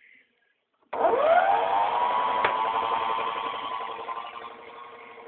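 Toy AEG washing machine's small electric motor starting up about a second in, its whine rising quickly in pitch and then running steadily as the drum turns, with one click partway through, slowly getting quieter.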